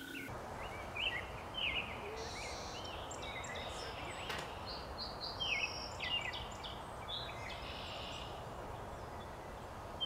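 Wild birds singing and calling: short chirps and whistled notes from several birds, scattered throughout, over a steady background hiss.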